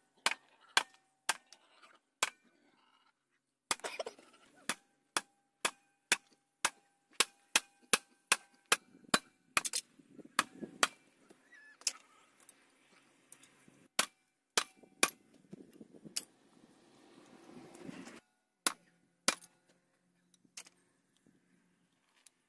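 Hammer blows on metal, most likely the parts of an outboard motor being broken apart for scrap aluminium: sharp, irregular strikes about one or two a second, some leaving a brief ring. About two-thirds of the way through there is a few seconds of scraping and rustling, and then the strikes thin out.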